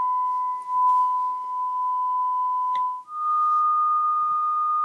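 Sine-wave test tone played through a 1970 Fisher loudspeaker: a steady 1 kHz tone that steps up to 1.25 kHz after a short break about three seconds in.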